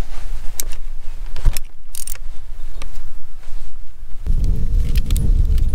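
Scattered sharp metallic clicks of a small ratchet and socket loosening 10 mm bolts on an engine's coolant outlet. A low rumble with a steady hum comes in about four seconds in.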